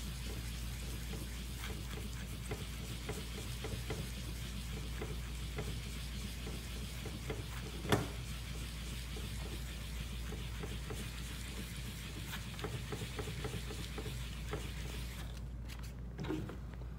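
Hand-held sponge polishing pad scrubbed back and forth over a wet stone tile to rub out an etch mark, a steady rubbing with small ticks and one sharper knock about eight seconds in. The scrubbing stops shortly before the end.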